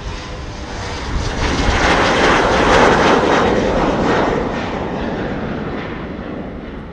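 Embraer 190 regional jet passing close by, the noise of its twin turbofan engines swelling to a peak about three seconds in, then fading away.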